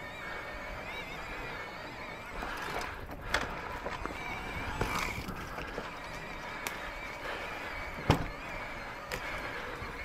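Electric mountain bike riding down a dirt trail: steady tyre and chassis rattle, with sharp knocks as it hits bumps and roots, the loudest about eight seconds in.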